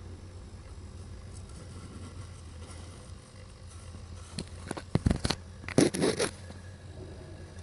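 Steady low hum with a short burst of scraping, crinkling and clicking noises about four to six seconds in, loudest twice near five and six seconds.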